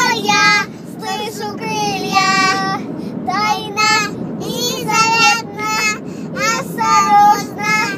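Young children singing in high-pitched voices, short repeated sung phrases with gaps between, inside a car cabin with a steady low road and engine rumble beneath.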